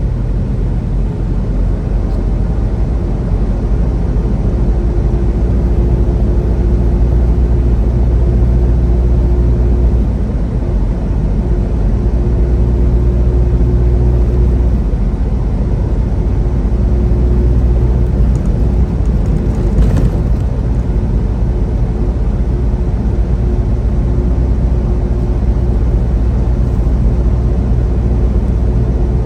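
Semi-truck diesel engine and road noise while cruising at steady highway speed, a constant low rumble with a steady engine hum. A single brief knock about two-thirds of the way in.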